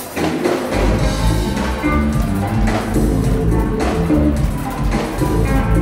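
Live Latin funk-rock band playing: electric guitar over bass and drums with hand percussion such as wood block or tambourine. The bass drops out for a moment at the start and the full band comes back in just under a second in.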